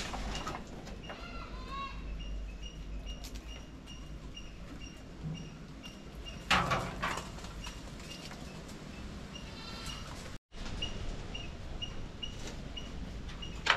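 Young goats bleating, with a short bleat about a second in and a loud clatter about six and a half seconds in. A bird chirps repeatedly in the background.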